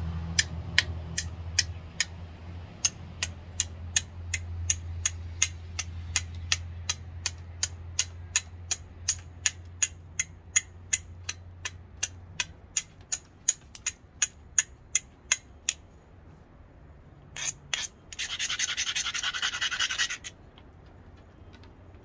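Flat copper bar drawn down across the edge of a chert biface preform to bevel it: a long run of sharp clicks, about three a second, as small flakes snap off the edge. Near the end the clicks stop and the bar rubs and grinds along the edge for a couple of seconds.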